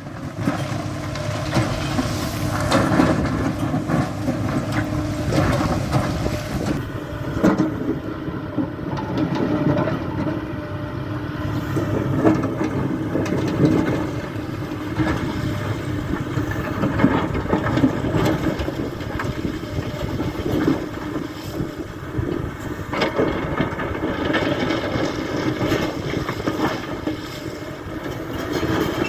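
Kobelco SK75 excavator's diesel engine running steadily under working load, with irregular knocks mixed in.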